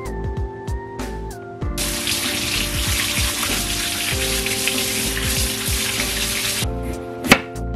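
Kitchen tap running water into a sink for about five seconds, turned on about two seconds in and off again near the end.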